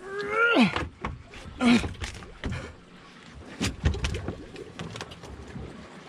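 A man's strained vocal groans of effort, the first rising then dropping sharply, as he heaves up a very heavy fish, then several sharp knocks and thumps as it is handled against the boat.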